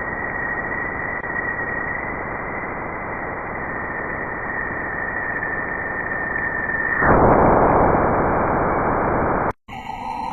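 Radio-static-like hiss with a thin, steady high tone running through it, as in a 'planet sound' recording of sonified spacecraft data. About seven seconds in the tone stops and the hiss swells louder, then cuts off suddenly near the end, and a different sound with shifting tones starts.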